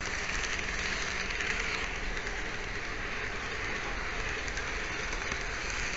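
Steady rolling noise of an N-scale model train running on Kato Unitrack, picked up by a mini camera riding on the train, with faint clicks scattered through it.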